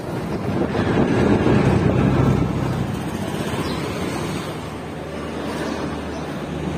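Wind on the microphone and engine and road noise from a moving three-wheeler, easing about three seconds in to the steady background noise of a railway station.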